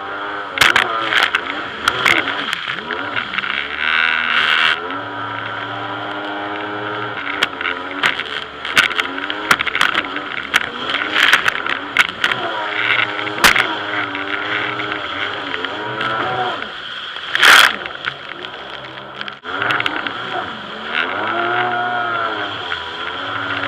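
Jet ski engine running, its pitch rising and falling again and again as the throttle opens and eases. Over it come many sharp slaps of the hull and water, and a brief loud rush of spray noise about two-thirds of the way through.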